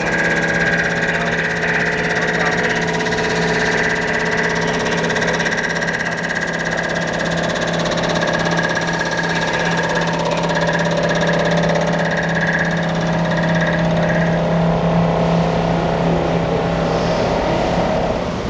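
Rottler F69A CNC machine surfacing a Waukesha cylinder head with its large spinning CBN cutter: a steady machine whine over a steady low hum. The higher whine fades out about fourteen seconds in, while the hum carries on.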